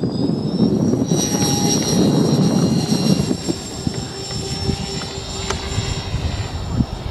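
Radio-controlled model B-24 Liberator taking off and climbing away: a high whine from its motors and propellers rises in pitch in the first second, then holds steady over a low rumbling noise.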